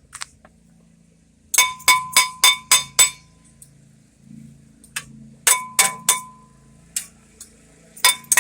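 Metal tool striking a car's front brake rotor, which rings with a clear metallic tone on each blow. About six quick strikes come first, then three more, then two near the end. The rotor is being knocked loose from the hub.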